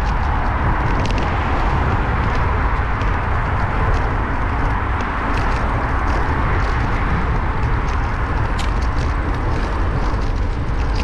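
Steady rush of wind and road noise on a bicycle-mounted GoPro Hero 8 while riding, heavy low rumble, with scattered small ticks and rattles.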